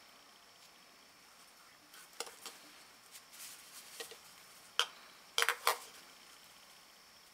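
Light metal taps and clinks from two steel diesel fuel filter canisters being handled in gloved hands. A few soft taps come first, then one sharp clink and a quick run of three louder clinks a little past the middle.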